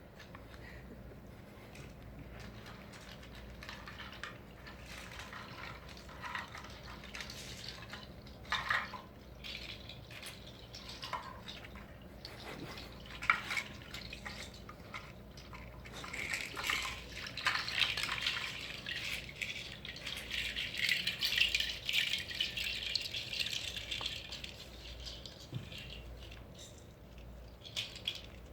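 Scattered small ticks and drips, then about halfway through a dense, fine pattering that runs for about ten seconds before thinning out again.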